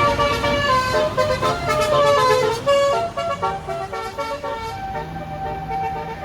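Bus 'telolet' Basuri multi-tone air horn playing a quick melody of stepped notes, with the bus's engine running underneath. The tune thins out near the end, leaving one held tone.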